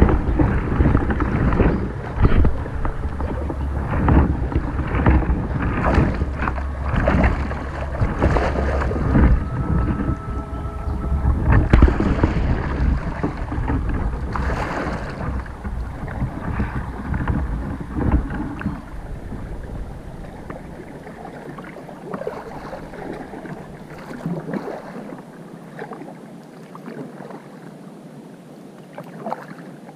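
Sit-on-top kayak being paddled: irregular paddle and water sounds under a heavy wind rumble on the microphone. About two-thirds of the way through the wind rumble drops away and the water sounds go on more quietly.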